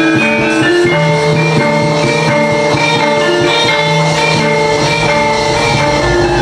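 Gamelan ensemble playing loud accompaniment for a wayang battle scene. Metallophones strike a quick running melody over drums and a recurring low tone.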